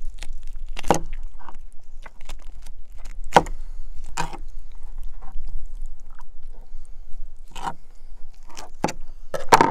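Knife cutting through the base of a plucked chicken's neck on a cutting board: scattered clicks, scrapes and knocks from the blade, about half a dozen.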